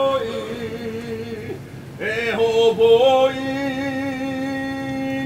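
A man chanting a traditional Hawaiian chant in long held notes on nearly one pitch. About two seconds in he breaks off and starts a fresh phrase, then holds a long note with a slight waver.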